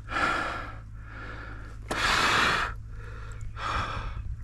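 A man breathing heavily: three loud, breathy exhales, the longest and loudest about two seconds in.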